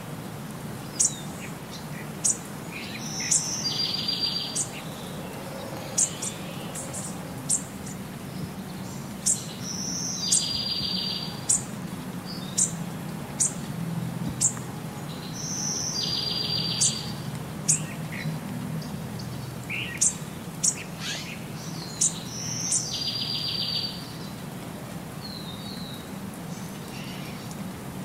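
Looped recording of birds chirping: short, sharp high chirps and a buzzy trill, the same pattern repeating about every six and a half seconds, over a low steady hum.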